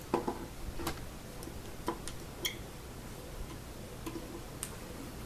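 A handful of light, irregular clicks and taps from handling the mandolin's nut and small tools, over a faint steady hiss.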